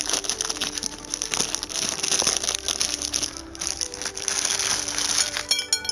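Plastic instant-noodle packet of Indomie Goreng crinkling and rustling as it is torn open and handled, with quiet background music.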